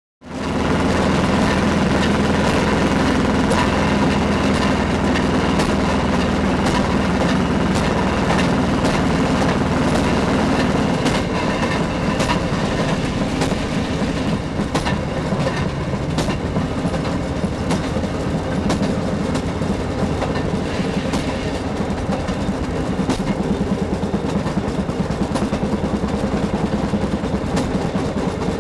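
Fairmont M-19 speeder's two-cylinder two-stroke engine running steadily, with its wheels clicking over the rails, heard from inside the cab. About eleven seconds in the engine's steady low drone drops away, leaving a rougher rattle and the clicking of the wheels on the track.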